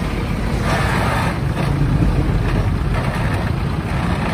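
Shibaura V52 tractor engine running steadily, with a fast, even low pulse.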